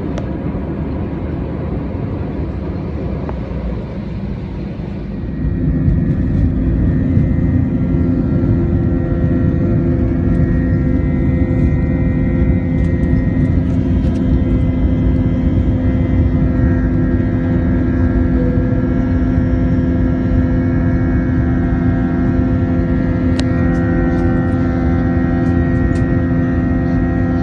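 Jet airliner engines running: a low rumble that steps up in loudness about five seconds in, then holds steady with a whine of several fixed tones over it.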